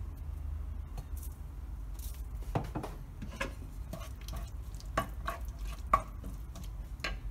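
A wooden spoon stirring thick mint paste with peanuts and cashews in a nonstick pot: scattered scrapes and knocks against the pot, the sharpest about six seconds in, over a low steady hum.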